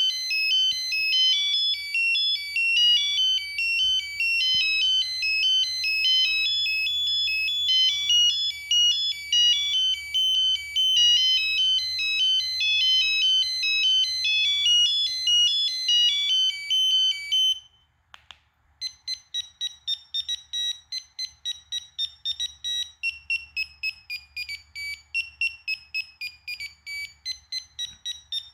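Preloaded ringtones on a Kyocera 2235 phone. First comes a quick electronic melody of many short notes, which stops about two-thirds of the way through. After a brief break a different tone begins: a rapid, evenly repeating run of short beeps whose pitch shifts partway along.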